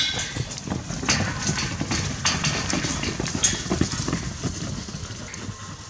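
Young steers milling in a steel-panel cattle yard: hooves shuffling and thudding on straw-covered ground, with scattered knocks and rattles as they bump the steel rails. The clatter is busiest in the first half and thins out toward the end.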